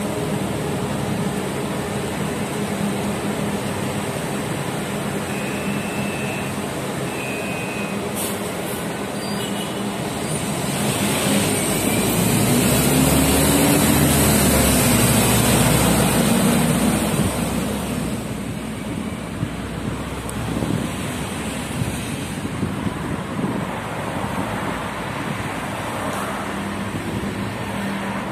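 City bus and road traffic: a bus engine running close by, growing louder with a rising then falling engine note for several seconds about halfway through, then easing back into steady street traffic.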